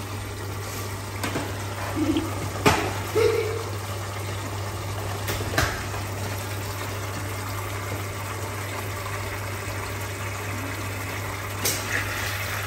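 Beef steaks simmering in sauce in a frying pan, a steady hissing sizzle with a low hum underneath. Chopsticks tap against the pan a few times.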